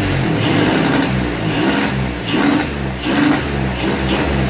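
Turbocharged Nissan VQ35 3.5-litre V6 running and being blipped on the throttle a few times, its pitch rising and falling, with a large exhaust leak at freshly welded exhaust pipework that the owner blames for the turbo not spinning at idle.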